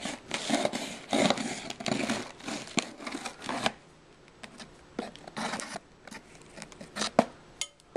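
Knife cutting through the packing tape on a cardboard shipping box: scraping and rustling of tape and cardboard for the first few seconds, then scattered light clicks and knocks as the box is handled.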